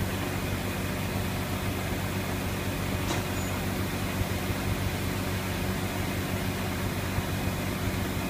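A heavy engine running steadily at idle with a low, even hum, with one short click about three seconds in.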